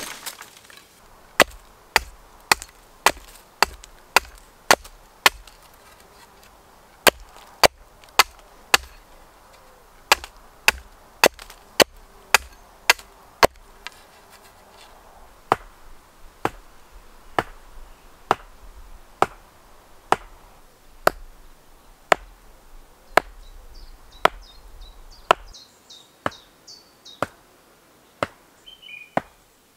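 Steel axe chopping green wood in sharp, evenly paced strikes, about two a second, felling a coppiced stem and pointing stakes on a chopping block. Faint birdsong near the end.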